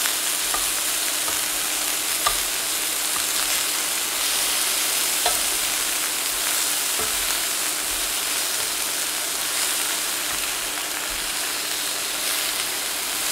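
Seasoned alligator pieces sizzling steadily in hot avocado oil in a cast-iron skillet, with a few sharp clicks of metal tongs against the pan as the pieces are turned, the loudest about two and five seconds in.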